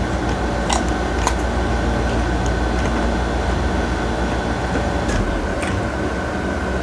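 Steady machine hum and hiss with a thin steady high whine, like a room fan or air conditioner running. A few soft clicks of a person biting and chewing mango, about a second in and again around five seconds.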